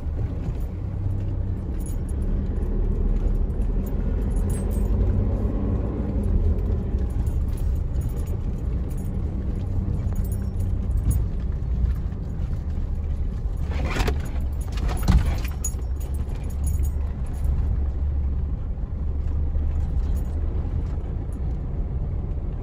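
Cabin noise of a vehicle driving over a rough dirt track: a steady low rumble of engine and tyres, with light jingling and rattling of loose things inside the cabin. Two louder jolts come about 14 and 15 seconds in, as it hits bumps.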